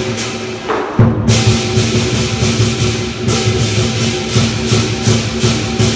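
Lion dance percussion ensemble: a large Chinese lion dance drum beating steadily under repeated cymbal clashes, with a brief break and then a hard accent about a second in.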